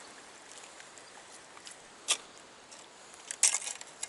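Faint, steady rush of river water with a few sharp clicks: one about two seconds in and a quick run of them near the end.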